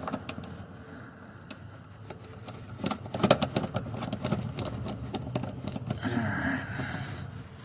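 Small metal clicks and clinks of bolts, washers and a heim-joint rod being handled and fitted onto a transfer case shifter linkage, with a quick burst of clicks about three seconds in.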